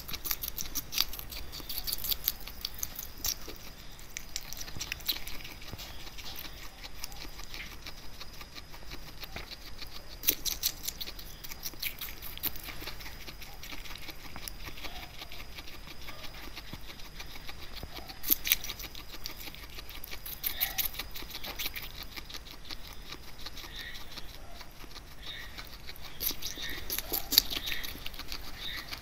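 A guinea pig biting and chewing pieces of raw pear: rapid crisp crunching clicks, coming in thicker bursts every several seconds with lighter chewing between.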